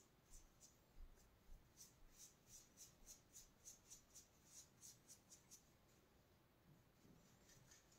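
Faint, quick, scratchy strokes of a paintbrush laying chalk paint onto a wall, nearly four a second, stopping a bit past halfway.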